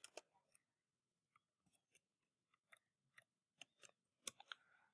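Faint, irregular keystrokes on a computer keyboard: a dozen or so soft, separate clicks spread through, the loudest few about four seconds in.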